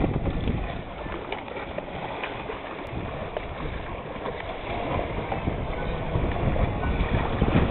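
Sea water rushing and splashing along the hull of a sailboat under way, mixed with wind rumbling on the microphone.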